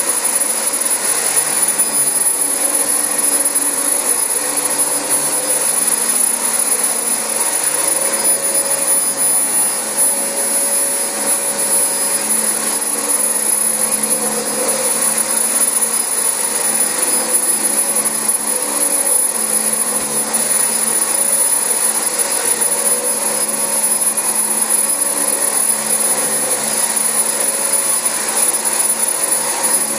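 Dyson DC25 upright ball vacuum cleaner running steadily as it is pushed over carpet: a constant motor drone with a thin, high-pitched whine above it.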